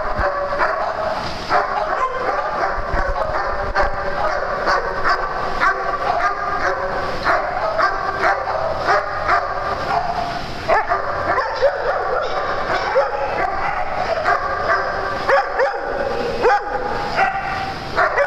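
Several dogs barking and yipping over one another without a break as they play together, short sharp barks overlapping throughout.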